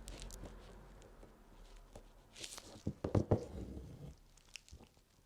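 Needle and crewel wool being worked through embroidery fabric: faint clicks, a short rasp of thread drawn through about halfway in, then a cluster of light taps and knocks just after, the loudest part.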